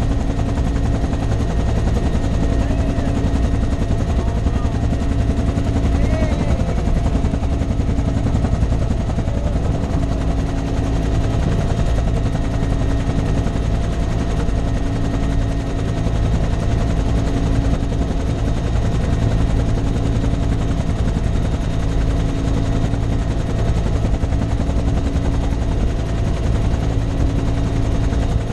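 Helicopter in flight heard from its open cabin door: the main rotor beats rapidly and steadily over a constant engine and gearbox whine.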